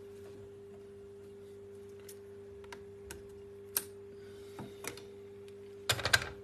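Scattered light clicks and taps from handling plastic laptop parts, ending in a quick run of louder clicks near the end, over a steady electrical hum.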